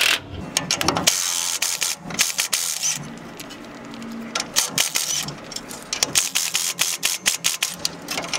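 Milwaukee cordless impact wrench running in short bursts as it spins nuts off a truck axle's U-bolts, followed by a string of sharp metallic clicks and taps.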